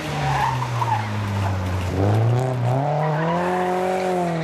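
Rally car engine coming off the throttle into a corner, then revving hard as the car accelerates away, with a gear change near the end; tyres skid as it slides through the junction.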